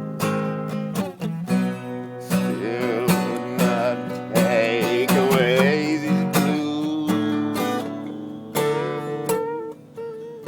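Strummed acoustic guitar playing a song passage, with long wavering melody notes held over it in the middle and near the end.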